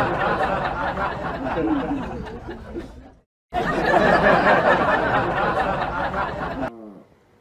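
Laughter and chatter from a group of people. It cuts off for a moment about three seconds in, starts again, and fades near the end.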